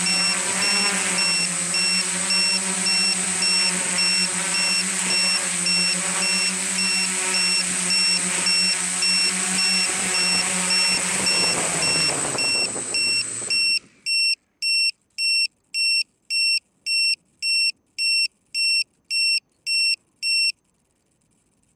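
Multirotor drone's motors humming steadily with an electronic beeper chirping over them. The motors cut off about 14 seconds in, and the beeper carries on alone at about two beeps a second before it stops near the end.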